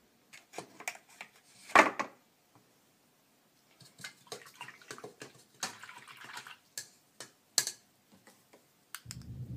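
A paintbrush being rinsed in a water pot: a loud swish about two seconds in, then light clicks, taps and scraping as the brush and paints are handled.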